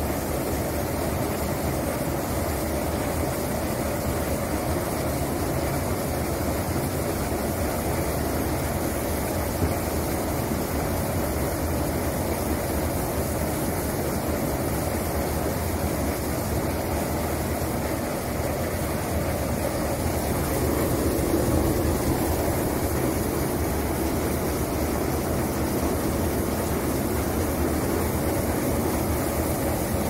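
Brush-roller root-vegetable washing machine running steadily with carrots on it: a constant motor drone under the rolling brushes and the carrots tumbling over them.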